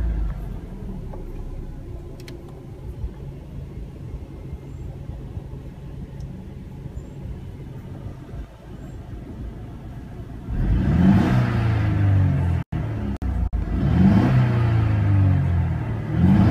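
2017 Mercedes-Benz C300's 2.0-litre turbocharged inline-four idling in Park, heard from inside the cabin. From about ten seconds in it is revved three times, each blip rising in pitch and falling back to idle.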